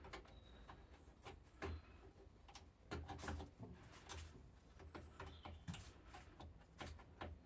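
Near silence with faint, irregular clicks and light knocks over a low hum.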